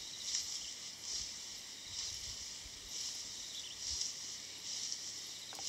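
Insect chorus: a steady high buzzing that swells about once a second.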